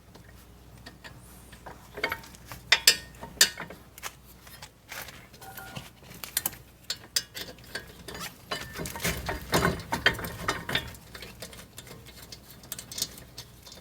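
Irregular clicks, clinks and light rattles of metal car-brake parts and tools being handled, with a short stretch of rustling about two thirds of the way through.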